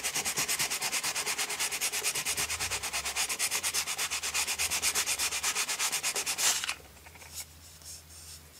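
Fine wet-and-dry sandpaper rubbed by hand in rapid, even back-and-forth strokes, several a second, over the scratched plastic head of a vintage Ram Man action figure, smoothing the rough surface before painting. The sanding stops abruptly near the end, leaving only faint handling.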